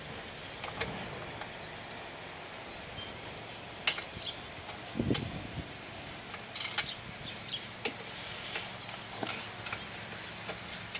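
Scattered small clicks and taps of hand work on a lawnmower's metal parts, fitting a washer and bolt at the engine mounting.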